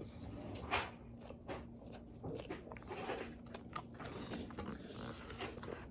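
Close-up mouth sounds of a person biting and chewing a Big Mac burger: faint, irregular soft crunches and smacks.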